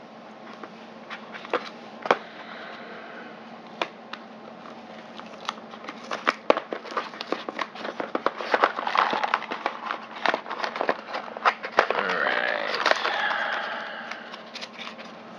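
Hands rummaging in the cardboard and plastic packaging of a quadcopter box: scattered clicks, taps and crackles that grow busier about halfway through, with a stretch of crinkling near the end.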